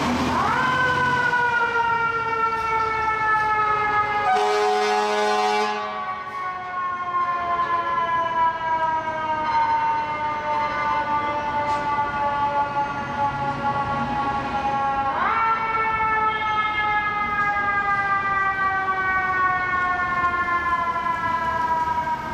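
Fire engine's mechanical siren winding up quickly, then falling slowly in pitch for about fifteen seconds, then winding up again and falling once more. A short blast of the truck's air horn comes about four seconds in.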